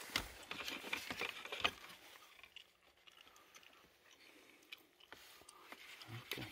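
Small sharp clicks and crackles of plastic car interior trim and a wiring connector being handled and unclipped. A cluster of clicks comes in the first two seconds, then quieter fumbling, and a few more clicks near the end.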